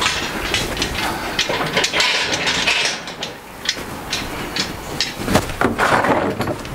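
Irregular metallic clanks and rattles from handling an engine hoist and its lifting chain, with a quieter stretch a little past the middle.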